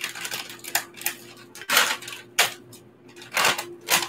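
A plastic bag of frozen tart cherries being cut open with a knife and handled over a steel pot, giving a series of short crinkles and rustles.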